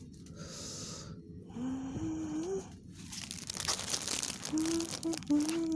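Plastic bags crinkling and tearing, a dense crackling rustle that is strongest in the middle, while a woman hums a few gliding notes of a tune twice.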